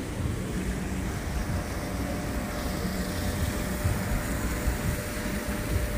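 Steady low rumble on a cruise ship's open deck: wind on the microphone mixed with the ship's own running noise, with a faint steady hum underneath.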